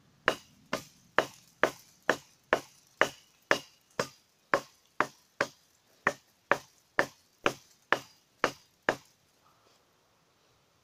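A thin Vietnamese-style cleaver of fully hardened 1.5 mm 19312 steel chopping into a piece of dry hardwood branch: about nineteen sharp strikes at roughly two a second, stopping about nine seconds in.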